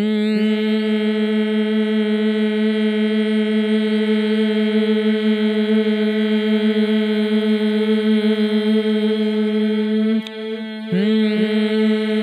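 A woman's voice holding one long, steady sung vowel tone, breaking off briefly after about ten seconds for a breath and then taking up the same pitch again. It is a sustained vowel sound from a vocal-vibration exercise, meant to make the whole body vibrate.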